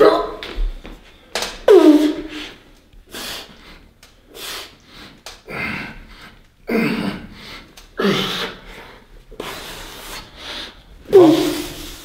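A man breathing hard and grunting with effort through repetitions of a heavy dumbbell bench press with 52 kg dumbbells, a forceful breath or grunt about once a second, with louder groans falling in pitch about two seconds in and near the end.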